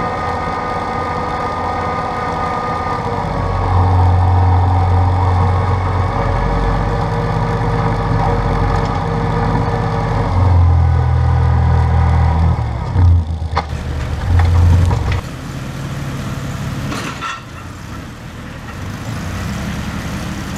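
Massey Ferguson 1523 compact tractor's three-cylinder diesel engine running steadily while the tractor scrapes a slurry-covered yard, with a deep hum that grows louder a few seconds in and a few knocks around two-thirds of the way through. Near the end the engine sounds fainter and further off.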